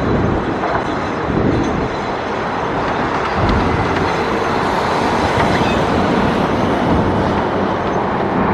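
Strong gusting wind buffeting the camera microphone, a loud, uneven rumbling rush.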